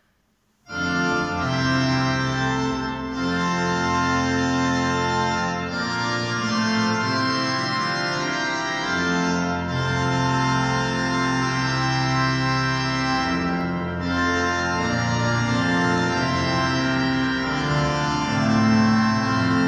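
Church organ entering suddenly on a loud, full chord after a moment of near silence, then playing sustained full-organ chords over a bass line that moves every second or two.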